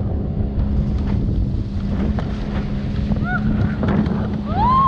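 Wind buffeting an action camera's microphone and water rushing as a towed banana boat skims over choppy sea, over a steady low hum. A rider gives a short high squeal about three seconds in and a rising shriek near the end.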